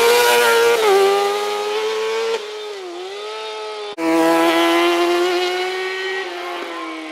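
Racing motorcycle engines running at high revs up a hillclimb, the engine note held high with a brief dip about three seconds in. The sound changes abruptly twice, about two and four seconds in.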